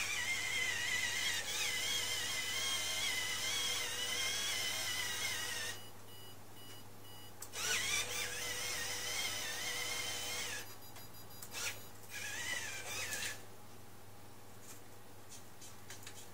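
Small electric drive motors of a homemade Arduino WALL-E robot whining as it drives on its tracks, the pitch wavering with load. It runs for about six seconds, stops for two, runs again for about three, then gives two short bursts.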